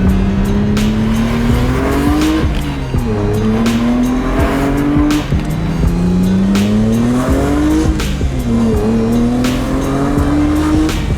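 Mercedes-AMG C63's 4.0-litre twin-turbo V8 under hard acceleration: the engine note climbs steadily in pitch, drops sharply at a gear change about two seconds in, then climbs again through a second upshift near the end.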